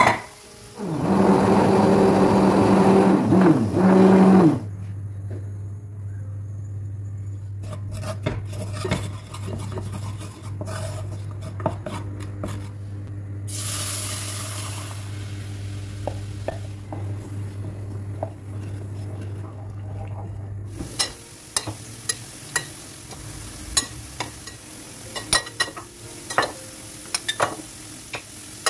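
Kitchen cooking sounds: utensils stirring and clinking against pots and dishes, over a steady low hum. A loud whirring hum fills the first few seconds, and sharp clinks come in quick succession near the end.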